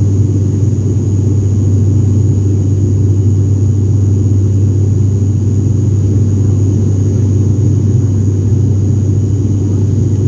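Airliner's jet engines and rushing air heard from inside the passenger cabin during the climb after takeoff: a loud, steady low drone with a thin, steady high whine above it.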